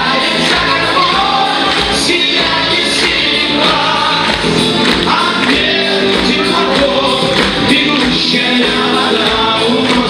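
Live rock band playing a song with singing: electric guitars, bass guitar, keyboard and drum kit.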